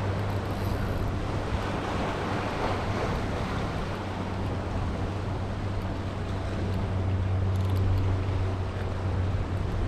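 Surf washing over the rocks below and wind buffeting the microphone, a steady rushing noise, with a steady low hum underneath.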